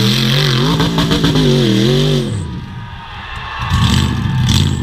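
Rock bouncer buggy's engine revving hard, its pitch rising and falling as it claws up a steep dirt hill. The engine drops off about two and a half seconds in, then revs up again near the end.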